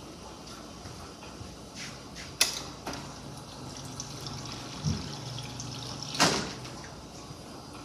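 Refrigerator door water dispenser: a couple of sharp clicks, then the dispenser valve hums steadily for about four seconds while water runs into a glass, with another loud click near the end.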